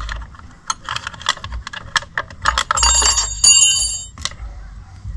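Clicks and clinks of a 5 mm Allen key and small metal bolts as the front sprocket cover of a Yamaha Raptor 700R is unbolted by hand. About three seconds in, a piece of metal rings brightly for about a second.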